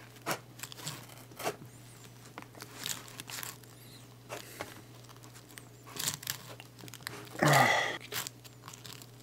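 A small fruit knife cutting and scraping into a mango's skin and flesh on a plastic cutting board: scattered small clicks, scrapes and tearing sounds, with one louder rough sound lasting about half a second late on.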